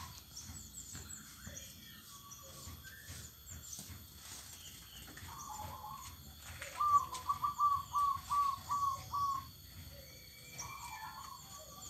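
Zebra doves (perkutut) cooing from the aviary cages: scattered soft coos, then past the middle a rapid series of about eight short, slightly falling coo notes. Small birds chirp faintly and high throughout.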